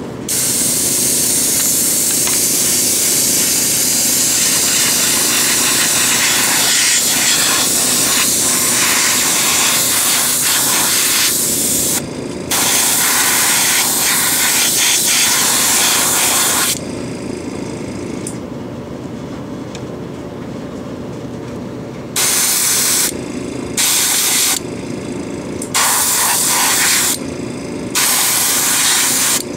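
Airbrush spraying Vallejo Surface Primer onto a plastic model: a hiss of air and primer held for about twelve seconds, then about four more, then after a lull four short bursts of a second or so. A small airbrush compressor runs steadily underneath throughout.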